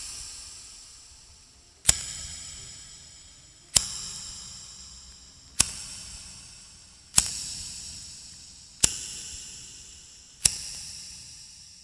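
A lighter clicking six times, about every second and a half to two seconds, each sharp click followed by a high metallic ring that fades away.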